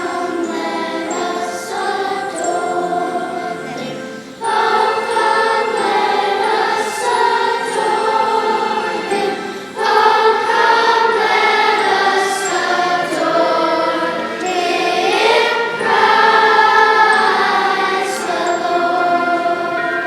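Church choir singing in several parts, holding long notes; new, louder phrases begin abruptly about four and ten seconds in.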